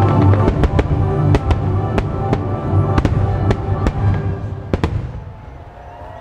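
Rapid fireworks bursts, a quick string of sharp bangs and crackles, over the show's loud orchestral music soundtrack. Both die down together about five seconds in.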